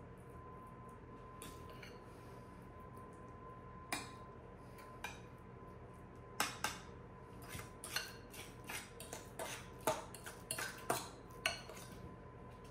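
Metal fork clinking and tapping against a glass baking dish: a couple of single taps, then a quick run of about a dozen sharp clinks in the second half.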